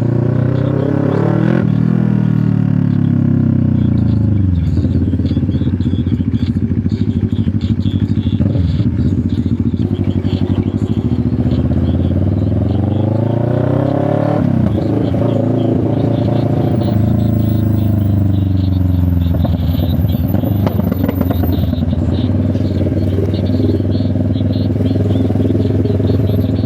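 CFMoto 650NK parallel-twin engine running through an SC Project exhaust while riding. Its pitch climbs and falls away a few times as the throttle is opened and closed, most clearly near the start and about halfway through.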